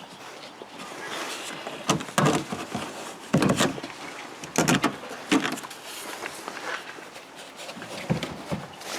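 Plastic trim clips and a trunk trim panel being pried and pulled loose by hand: a series of sharp clicks and knocks with rustling between them, most of them in the middle of the stretch.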